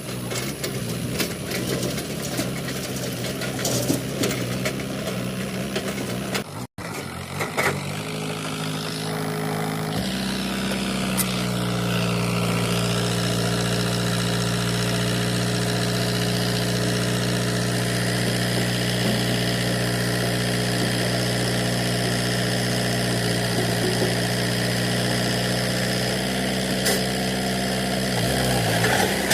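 JCB backhoe loader's diesel engine running, rising to a louder, steady higher speed about ten seconds in and dropping back down near the end.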